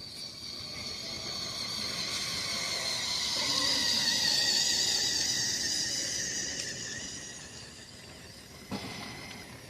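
LEGO train's small electric motor and gears whining as the train passes, swelling to its loudest about four seconds in and then fading away; a short knock near the end.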